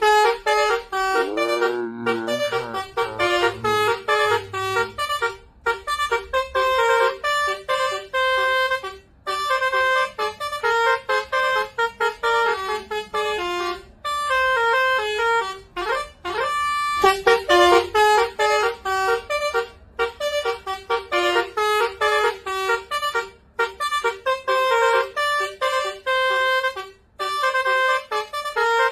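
Indonesian bus telolet horn (Basuri type) playing a fast dance melody of short notes, with a few brief pauses and some sweeping pitch slides near the start and around the middle.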